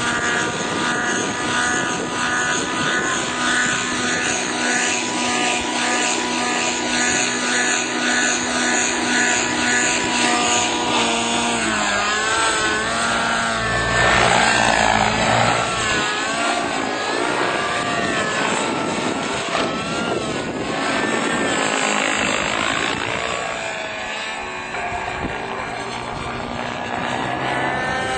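Thunder Tiger Raptor 90 model helicopter's nitro engine and rotor running at a steady high pitch while it hovers low, then rising and falling in pitch from about twelve seconds in as the helicopter flies around overhead.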